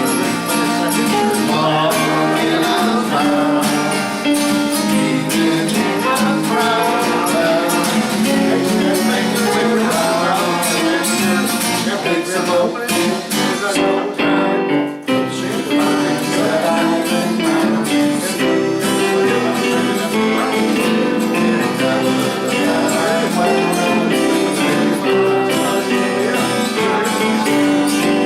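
Band music led by strummed guitars, playing on without singing, with a brief break about halfway through.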